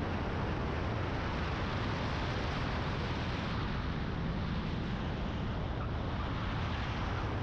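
Light single-engine plane's piston engine and propeller running steadily at landing power during the flare over the runway, with wind rushing over a camera mounted outside the cowling.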